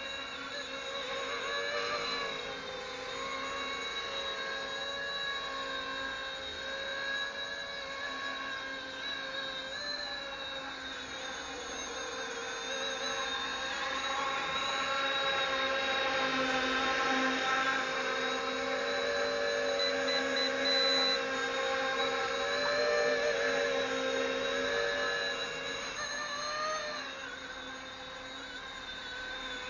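Small electric RC ERA C190 scale H145 helicopter in flight: its motor and rotors make a steady whine whose pitch wavers up and down with throttle.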